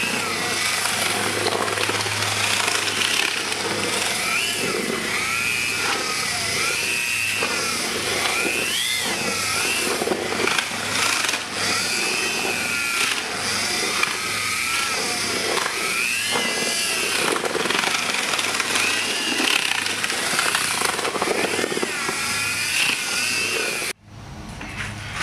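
Mud mixing drill running, its motor pitch rising and falling as the paddle churns epoxy-coated pebbles in a metal tub. The sound cuts off abruptly near the end.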